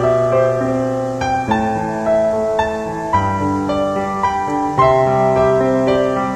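Piano music: held notes and chords that change every half second to a second.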